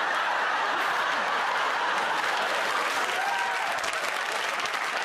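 Studio audience applauding and laughing at a fluffed take, a dense steady clatter of clapping.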